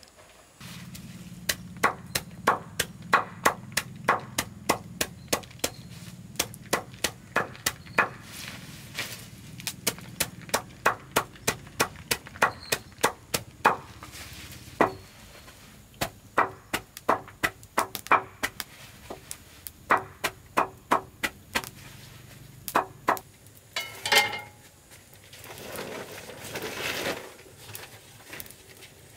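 Large knife chopping leafy green vines, sharp chops repeating at about two a second with a low steady hum underneath. Near the end the chopping stops and a few seconds of rustling, shuffling noise follow.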